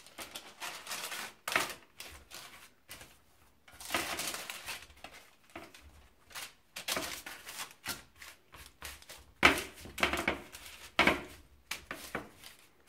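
Baking paper rustling and crinkling on a metal baking tray as a sheet of pizza dough is laid on it and pressed out by hand, in irregular bursts with a few sharper crackles.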